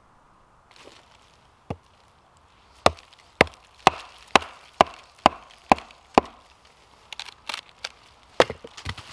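Wood being chopped: a single knock, then eight sharp strikes at about two a second, then a run of lighter knocks and cracks near the end.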